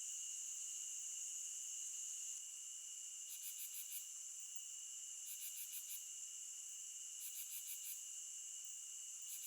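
Night insect chorus: a steady high-pitched cricket trill, joined by another insect's short calls, each a quick run of about half a dozen pulses, repeating about every two seconds.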